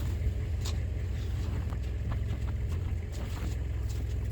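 A spade chopping into hard-packed snow, a string of short crunches, over a steady low rumble.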